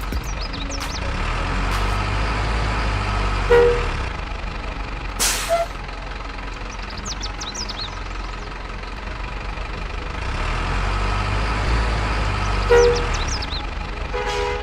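Heavy truck engine running steadily, with one short air-brake hiss about five seconds in and two brief horn-like tones.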